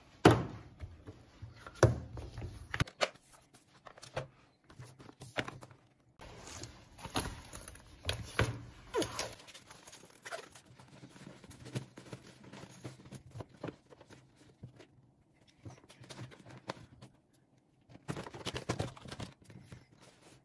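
Belongings being handled and packed into a canvas tote bag: scattered knocks and clicks with rustling between them, the sharpest knock just after the start.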